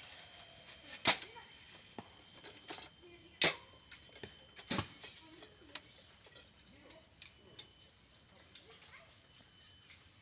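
Recurve bows shot in turn: three sharp bowstring snaps as the arrows are loosed, about one, three and a half and five seconds in. A steady high-pitched drone of insects runs underneath.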